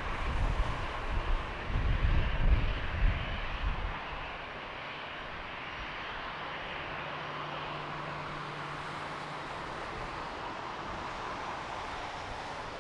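Jet airliner engines giving a steady rushing roar. For the first few seconds, wind buffets the microphone in irregular low gusts.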